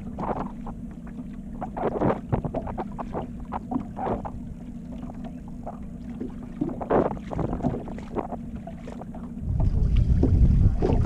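Small fishing boat under way on choppy water: a steady low motor hum under irregular slaps and splashes of waves against the hull. Wind buffets the microphone from about nine and a half seconds in.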